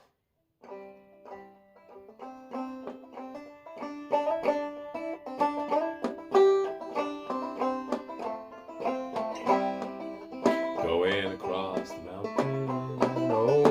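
Five-string banjo in sawmill-variant eDGCD tuning, picked in the key of C. It starts quietly and builds into a steady run of plucked notes, and a singing voice comes in near the end.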